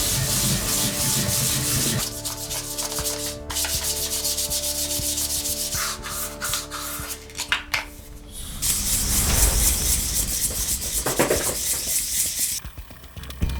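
Sandpaper being rubbed back and forth by hand in steady rasping strokes, in several short stretches that change abruptly from one to the next.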